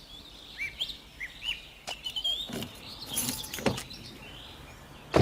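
Birds chirping in short, quick, curving calls, with a few knocks midway and a sharp click near the end.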